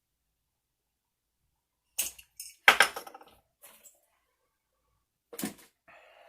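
Handling noise from cutting a Gold Hog sluice mat: a cluster of short knocks and clatter about two to three seconds in, another knock near the end and a brief soft scrape.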